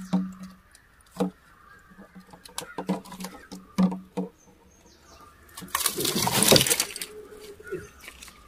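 Handling a caught snakehead in a fibreglass boat while the frog lure is unhooked: a string of short clicks and hollow knocks on the hull. Near the end comes about a second of loud flapping and rustling as the fish and landing net are handled.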